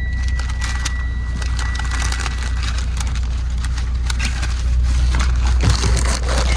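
A steady low rumble with many small crackling and crunching noises over it, both growing louder over the last two seconds.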